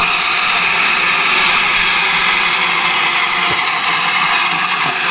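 Steam locomotive 7822 Foxcote Manor letting off steam: a loud, steady hiss that starts abruptly and cuts off about five seconds later.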